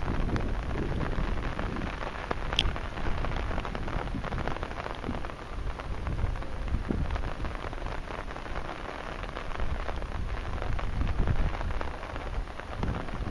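Heavy typhoon rain falling steadily, a dense patter of drops over an uneven low rumble.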